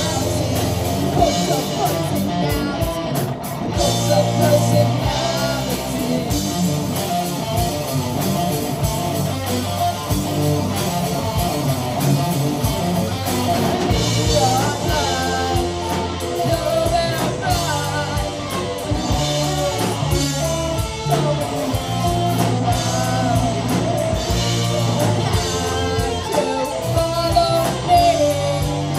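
Rock music with guitar and singing, playing steadily.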